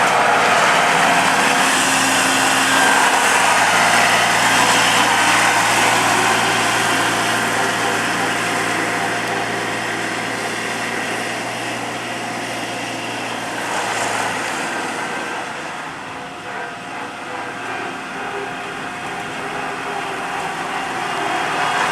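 Skid steer loader's engine running at working revs while the machine is operated, with a steady mechanical whine over it. About 14 seconds in the low engine note drops away and the sound eases, then it builds again near the end.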